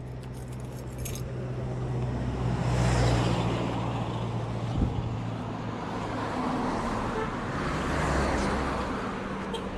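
Motorbike engine running at low speed as the bike rides slowly off, a steady low hum under road and wind noise that swells about three seconds in and again near the end. A single short knock comes about halfway through.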